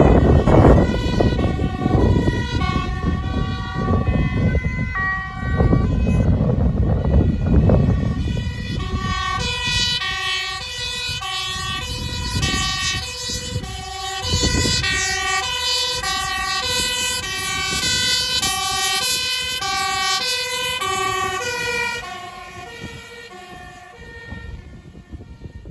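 Emergency vehicles' two-tone sirens alternating high and low about once a second, at times two sirens overlapping, with heavy low wind rumble on the microphone. The sirens fade out near the end.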